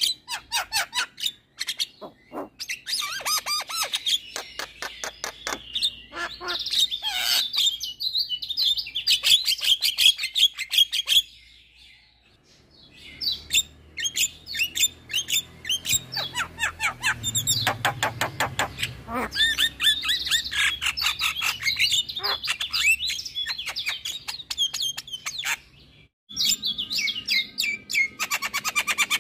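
Javan myna (jalak kebo) singing a loud, varied song of fast clicking rattles and warbling whistles. The song breaks off abruptly twice, about twelve seconds in and again near the end, then resumes.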